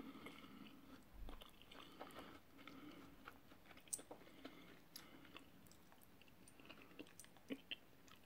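Faint wet squishing and crackling of sauce-coated shredded iceberg lettuce and a soft bun as a fish burger is handled and pressed back together. Scattered small clicks and taps follow.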